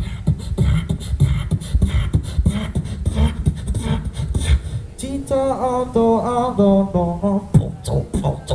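Solo beatboxing into a handheld microphone: a fast, steady beat of vocal kick and snare sounds. About five seconds in, a pitched, wavering sung line comes in over the beat for about two seconds, then the plain percussion resumes.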